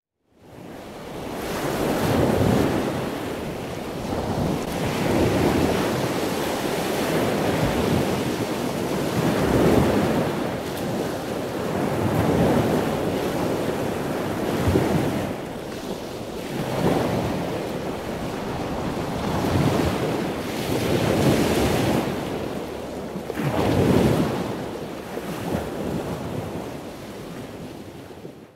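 Ocean waves surging and washing, a swell every two to three seconds, with wind noise on the microphone. It fades in at the start and fades out at the end.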